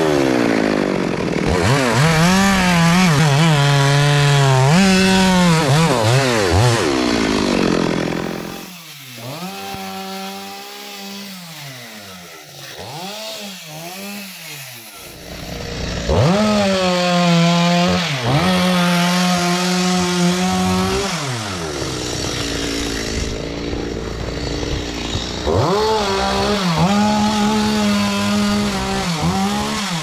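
Stihl chainsaw cutting through the trunk of a felled mango tree, its engine screaming at full throttle under load and dropping back in pitch between cuts. From about nine to fifteen seconds in it is much quieter, with the revs still rising and falling, then it goes back to full-throttle cutting.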